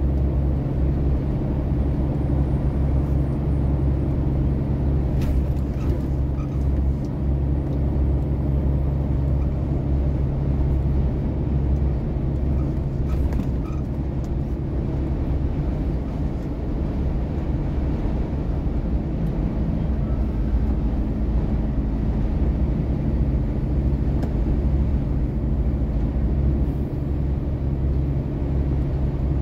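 Engine and tyre noise of a vehicle cruising at highway speed, a steady low drone heard from inside the cab.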